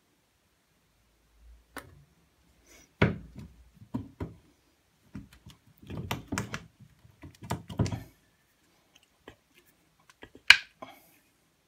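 Woodworking clamps being handled and set on a knife-handle glue-up: a run of irregular knocks and clicks as a metal bar clamp and screw clamps bump against the wooden block and bench, with one sharp click near the end.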